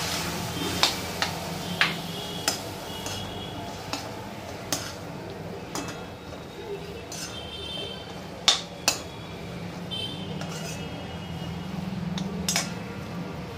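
A steel spoon stirring potato filling in a steel kadhai, scraping and tapping against the pan. The taps are sharp metallic clinks that ring briefly, about ten of them, the loudest pair a little past halfway, over a steady low hum.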